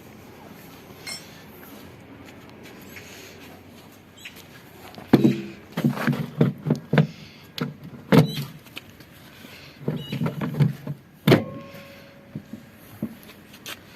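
Irregular knocks and taps of work on washing machine parts during a bearing replacement, beginning about five seconds in. The last and loudest knock is followed by a brief ringing tone.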